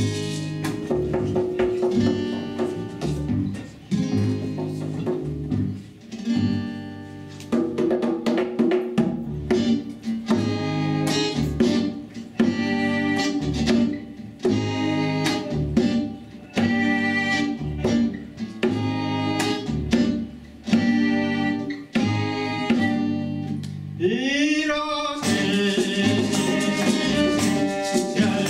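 Live acoustic band playing an Ethiopian song, with acoustic guitar, double bass, hand drum and two violins in a steady rhythm. About 24 s in, a sliding note leads into a fuller, denser passage.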